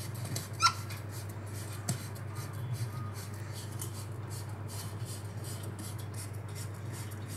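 Hand-held trigger spray bottle being pumped over and over, short hissing spritzes of mist several times a second. One short rising whistle, the loudest sound, comes about half a second in.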